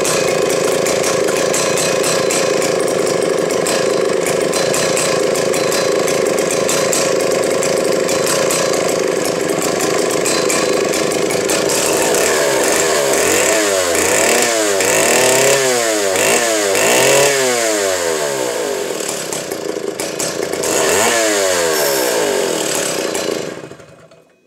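Vintage Stihl 090 two-stroke chainsaw engine running steadily, then revved up and down several times from about halfway through, with one more rev near the end. It is shut off and dies away just before the end.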